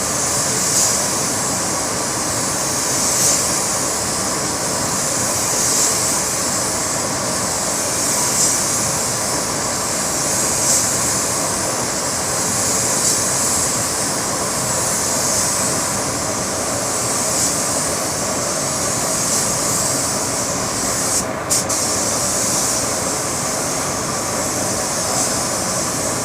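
Compressed-air paint spray gun hissing steadily, the hiss swelling about every two and a half seconds as it sprays car paint. It cuts out briefly once near the end.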